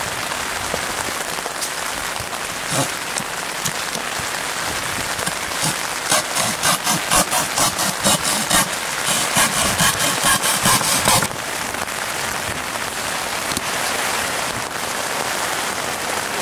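Steady rain falling on wet ground and boards. From about a third of the way in, for some five seconds, a regular series of rasping strokes, about two a second, stops abruptly.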